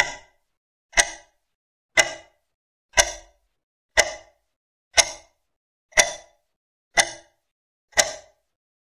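Clock-tick sound effect counting down the answer time, one sharp tick each second, about nine ticks in all.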